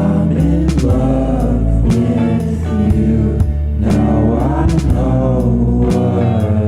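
Background music: a song with a sung vocal over bass and a steady beat.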